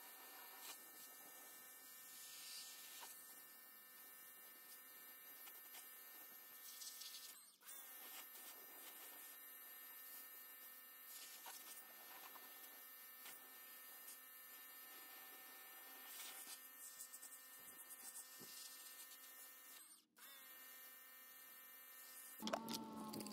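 Pressure washer running steadily on a car wheel: a faint motor hum with a light hiss of spray, cutting out briefly twice. Near the end a louder, different sound begins.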